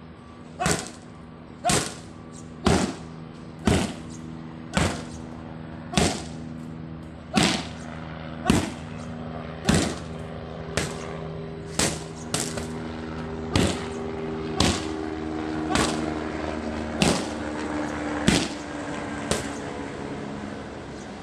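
Boxing-gloved punches and shin kicks landing on Muay Thai kick pads held by a partner: sharp slapping strikes about once a second, some eighteen in all, over a steady low hum.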